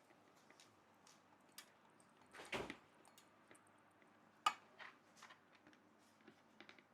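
Faint scattered clicks and taps of screws and metal fan-stand parts being handled and tightened by hand, with a louder knock about two and a half seconds in and a sharp click about two seconds later.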